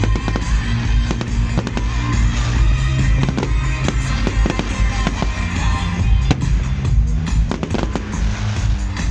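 Fireworks display: a rapid run of bangs and crackles over loud music with a steady bass line.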